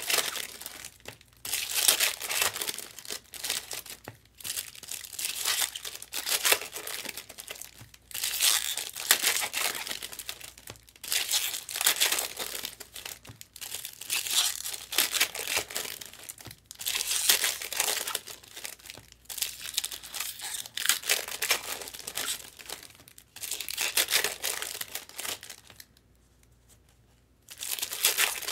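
Trading-card pack wrappers crinkling and tearing as packs are opened, in repeated bursts of a second or two, with a short pause near the end.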